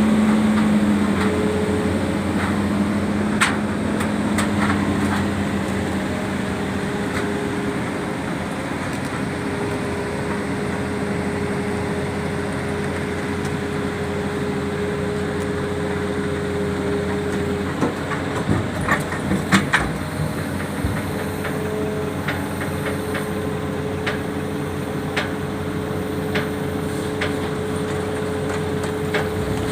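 A heavy diesel engine running steadily, with scattered metallic clanks and knocks, a cluster of them about two-thirds of the way through.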